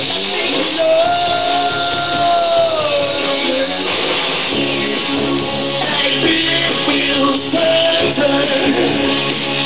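A live band performing a song. A male singer holds one long note about a second in that slides down at its end, and a shorter held note near the end, over the band's backing.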